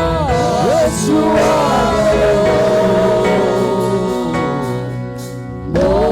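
Gospel worship music: singing with no clear words over held instrumental chords. It eases off about five seconds in, then swells again just before the end.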